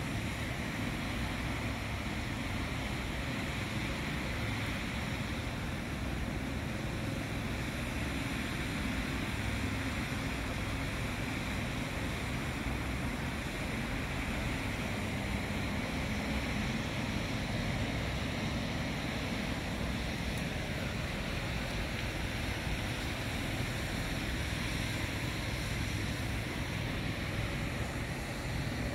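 Steady outdoor background noise: wind on the microphone over a low rumble, with no distinct sound standing out.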